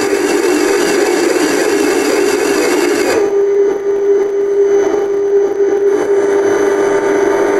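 Loud experimental electronic drone music: a steady hum with layers of hiss and high tones that drop away about three seconds in, leaving a single held tone.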